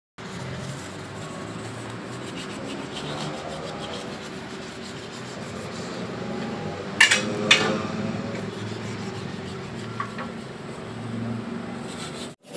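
Hand wet-sanding a primed motorcycle frame: sandpaper rubbing back and forth over the primer to smooth it before painting. Two sharp knocks come about halfway through.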